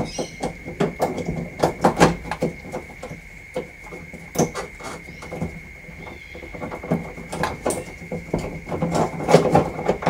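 Irregular clicks, taps and knocks of hand tools and door-handle parts being handled while the front door handle and its linkage are taken apart.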